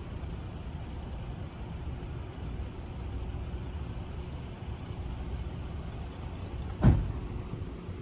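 Low steady rumble of a vehicle running, with one sharp thump near the end.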